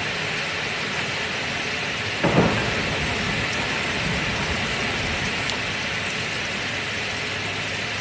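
Steady rain with a sudden thunderclap a little over two seconds in that rumbles away over the next couple of seconds.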